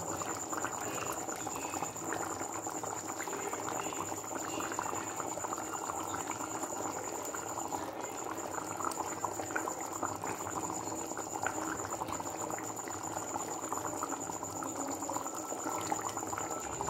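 Thick chicken curry boiling hard in a clay pot: a steady, busy bubbling with many small pops, the curry at a full rolling boil.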